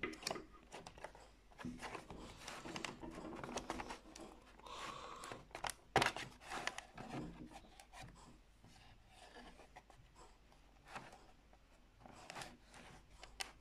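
Fingers rubbing, scraping and tapping over a cardboard Milka advent calendar while picking at its doors, with soft crinkles and a sharper click about six seconds in.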